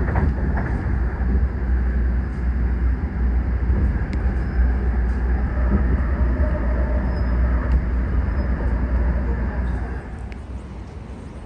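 Steady running noise of a double-deck electric suburban train heard from inside the carriage: a low rumble and rush of wheels on rail, with a few light clicks. About ten seconds in it gives way to the much quieter, steady hum of a station platform.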